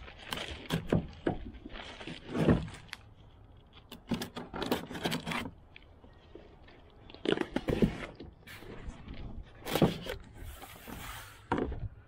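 Utility knife slitting packing tape on a cardboard box, with the cardboard scraping and rustling as the box is turned and its flaps pulled open, in several irregular bursts.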